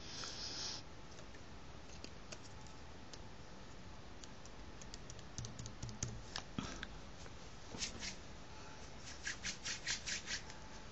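Faint handling of a folded paper hexaflexagon on a table while its glued tab is pressed down: a short paper rustle at the start, scattered light clicks and scratches, and a quick run of about seven light taps near the end.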